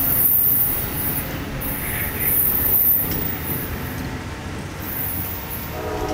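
Amtrak passenger train rolling away down the track: the rumble of its wheels fades, with high-pitched wheel squeal coming and going twice. A train horn starts sounding right at the very end.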